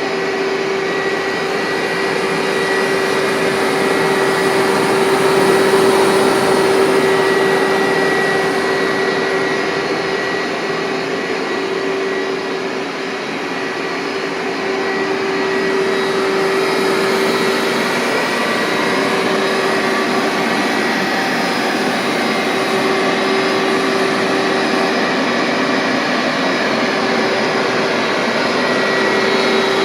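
1999 Hoover SteamVac Widepath carpet cleaner running continuously: a steady motor whine with a constant hum, its level swelling and dipping slightly midway.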